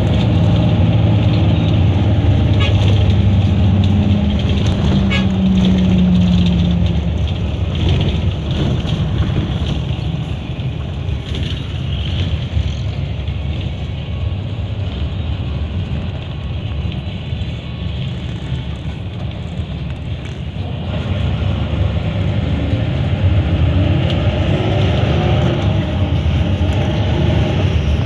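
Bus engine and road noise heard from inside the moving bus. The engine's hum climbs in pitch in the first few seconds, eases off through the middle and grows louder again near the end.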